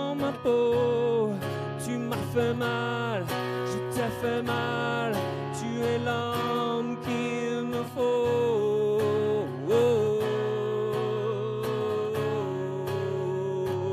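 Live music: an acoustic guitar strummed in a steady rhythm, with a held melody line above it that slides between notes and sustains one long note through the second half.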